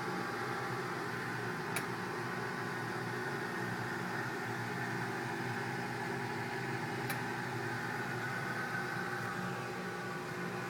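Two sharp, brief clicks from household plumbing, about five seconds apart: the unexplained phantom clicking in the pipes. They sound over a steady mechanical hum.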